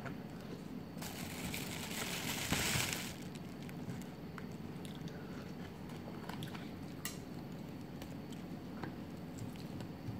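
Eating sounds: chewing, with a plastic spoon scraping and clicking on a paper food box, and a rustling noise about a second in that lasts some two seconds.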